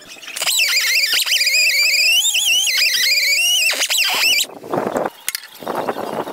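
A hand-held power tool spinning a bristle disc against the compressor's steel valve plate, stripping old gasket material. It makes a loud high whine that wavers in pitch as the disc bears on the plate, lasts about four seconds and cuts off suddenly. Two short bursts of scuffing noise follow.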